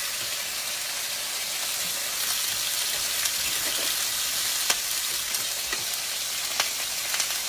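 Small pieces of raw chicken searing in hot olive oil in a stainless frying pan: a steady sizzling hiss with a few sharp pops of spattering oil. The pan is very hot.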